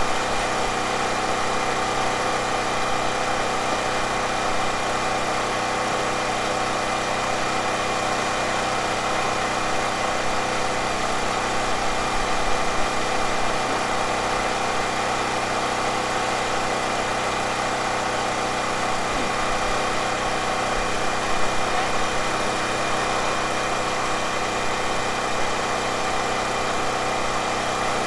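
An engine running steadily at idle, its even hum unchanged throughout, with a couple of small bumps partway through.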